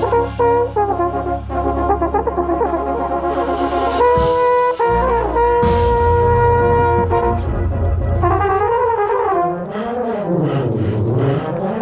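Drum corps brass line playing, with the mellophone close to the microphone: held chords that change to a louder chord about four seconds in, then a phrase that swoops up and down in pitch near the end.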